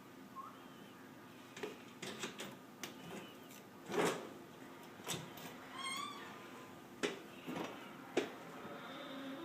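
A domestic cat meowing once, briefly and wavering in pitch, about six seconds in, among scattered light clicks and knocks from handling small parts on a work surface; the loudest knock comes about four seconds in.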